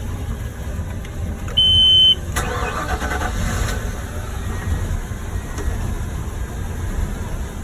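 Twin MerCruiser 383 Magnum V8 inboard engines with one idling in a low rumble. About a second and a half in, a short high-pitched beep sounds. Half a second later the second engine cranks and catches, joining the idle.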